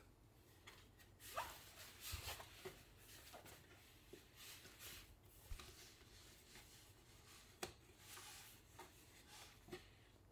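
Faint rustling with scattered light clicks and knocks as small things on a cushioned chair are picked up and moved by hand.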